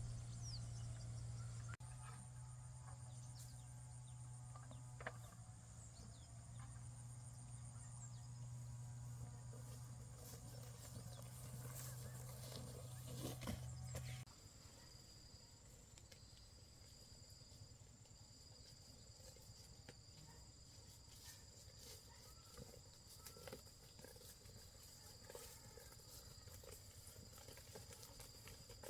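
Faint countryside ambience with insects trilling in thin, high-pitched steady tones. A low hum runs under it for about the first half and stops abruptly about halfway through.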